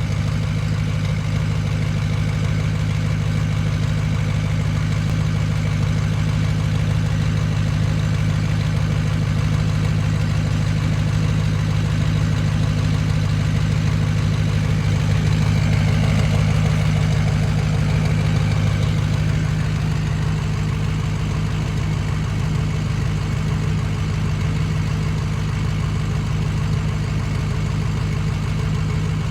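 Ford 6.0 Powerstroke V8 turbodiesel idling steadily, swelling slightly about halfway through. The engine has a bad injector in cylinder #6.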